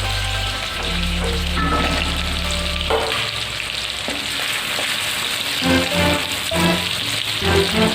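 Food sizzling as it is stir-fried in a hot pan, a steady hiss, under background music.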